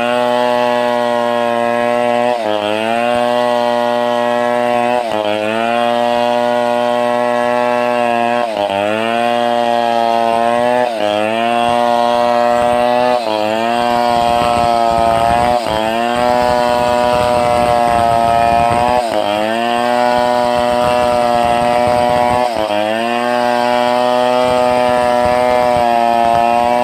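Stihl 070 two-stroke chainsaw running hard, cutting through timber. Its engine note sags briefly under load and picks back up about every two to three seconds.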